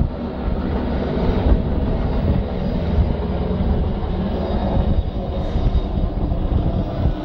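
Light single-rotor helicopter flying low overhead, its rotor and engine running steadily.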